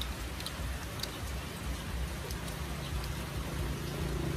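Light rain pattering, scattered small drop ticks over a steady hiss. From about halfway through, an engine's steady hum comes in underneath.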